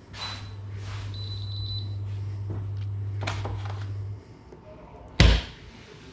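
Steady low hum of a running kitchen appliance that cuts off about four seconds in, followed by one loud thunk like a door or lid shutting.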